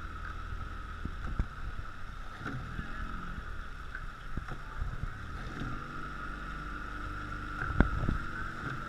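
Rowing shell underway: wind buffeting a boat-mounted camera and water rushing along the hull, with a steady high hum running through. A few sharp knocks from the oars stand out, the loudest near the end.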